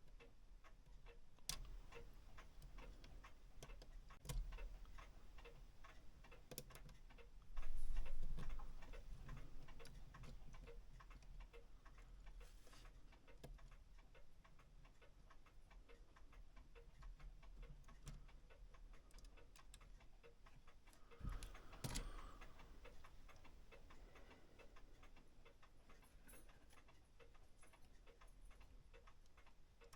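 A clock ticking steadily, with occasional knocks and clatter of metal clock parts being handled; the loudest knock comes about eight seconds in.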